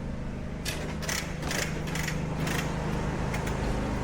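Metal parts and hand tools clicking and scraping in a series of short sharp sounds, over a steady low machine hum.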